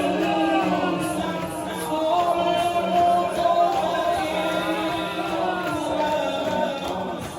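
A man singing a slow, drawn-out Shia mourning chant (noha) for Ashura, over a steady low tone.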